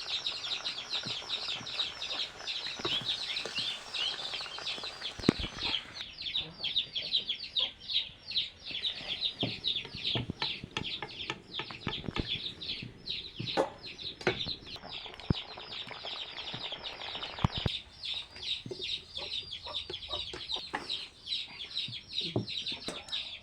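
Chickens calling: a dense, continuous run of quick high chirps and peeps, with a few scattered knocks.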